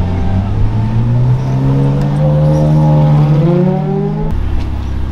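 Loud car engine accelerating, its pitch rising steadily for about four seconds. A little past four seconds it breaks off abruptly into a lower, steady engine sound.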